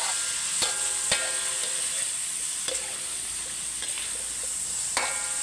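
Pork belly frying in oil and garlic in a wok, a steady sizzle while the meat is seared firm, with a spatula scraping and knocking against the pan a few times.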